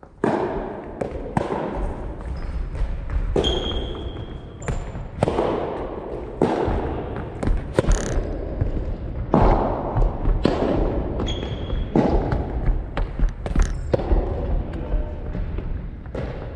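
Soft tennis rally: the rubber ball is struck by rackets and bounces on a wooden gym floor, each hit a sharp pop about every second or so, ringing on in the hall's echo. A few short high squeaks, from shoes on the floor, come between the hits.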